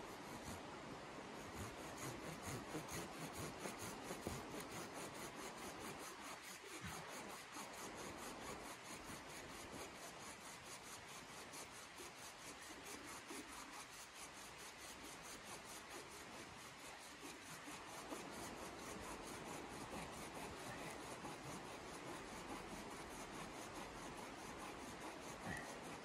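Hand saw cutting through a birch pole in steady back-and-forth strokes.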